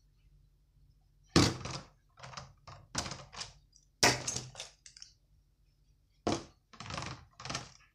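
Beyblade spinning tops knocking and clacking against a plastic stadium as they are set down and handled: a string of about ten sharp knocks, the loudest about a second and a half in and again about four seconds in.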